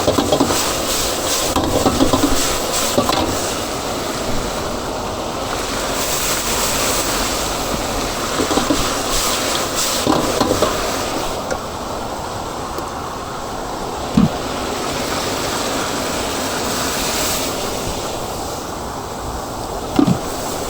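Chicken frying in a large wok, a steady sizzle and hiss, with a couple of short knocks.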